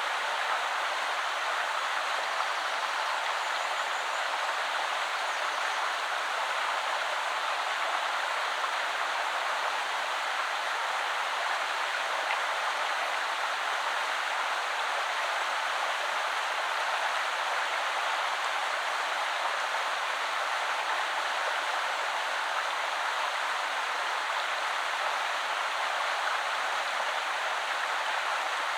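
Shallow river flowing steadily over stones, an even rushing and babbling of water.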